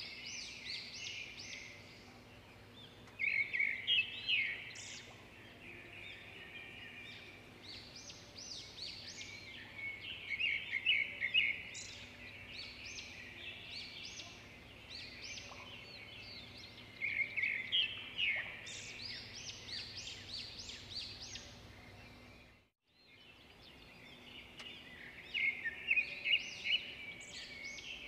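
Songbirds singing in bursts of rapid chirps and trills every few seconds over a faint steady low hum; the sound cuts out briefly near the end.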